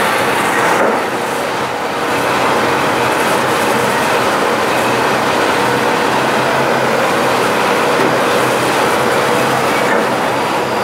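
Mobile crane's engine running steadily under load while it holds a backhoe loader up and carries it, a loud, even mechanical noise.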